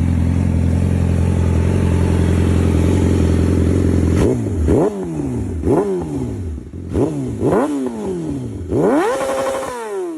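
Inline-four 600 cc sport bike engine through an M4 aftermarket exhaust, idling steadily, then revved about four seconds in with five quick throttle blips, pitch rising and falling each time, the last held for about a second.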